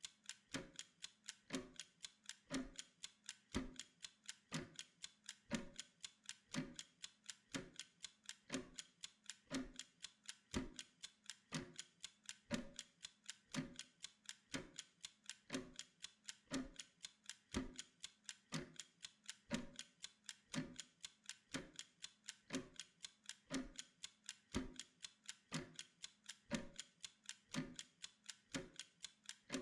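Mechanical timer ticking steadily, about two ticks a second.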